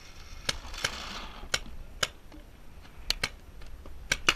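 Paintball markers firing in the field: scattered sharp pops, a few a second, with paintballs smacking the bunker, coming faster near the end.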